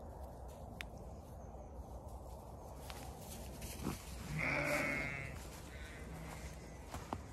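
A Zwartbles sheep bleats once, a loud wavering call about a second long a little past halfway, followed by a shorter, fainter call.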